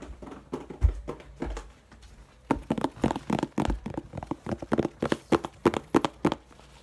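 Fingers handling and prying at a red plastic slime container right at the microphone: a low thump about a second in, then a fast, irregular run of sharp plastic clicks and taps for about four seconds as the lid is worked.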